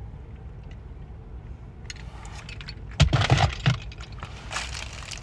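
Ice cubes clinking and rattling in a drinking glass as it is handled, with a loud cluster of knocks and clinks about three seconds in.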